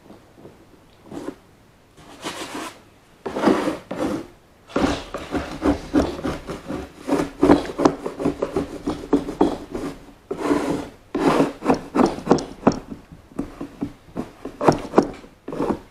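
Rubbing strokes against a wooden baseboard, repeated back and forth in several spells with short pauses between them.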